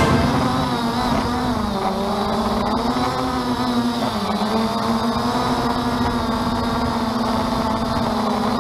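Small camera drone's propellers and motors whirring steadily, the pitch dipping and rising slightly a few times as it manoeuvres.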